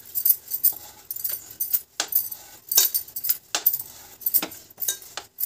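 Rolling pin working a stuffed aloo paratha on a rolling board, giving irregular light clicks and clinks, about two or three a second.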